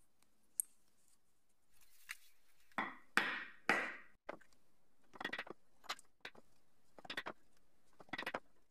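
Multi-pronged leather pricking iron struck into a leather axe sheath to punch stitch holes: a series of sharp, irregularly spaced knocks, loudest a little past three seconds in. A faint metallic click from a brass buckle comes near the start.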